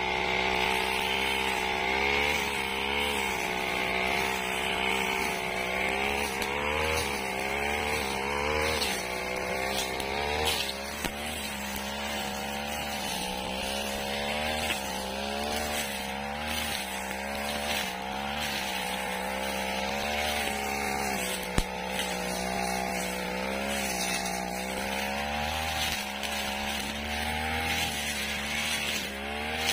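Backpack brush cutter's small petrol engine running at high revs while its blade sweeps through dry grass, the pitch wavering up and down. A single sharp click about two-thirds of the way through.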